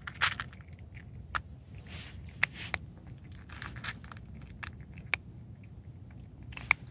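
A cat chewing dry kibble: irregular sharp crunches and clicks as the pellets break between its teeth.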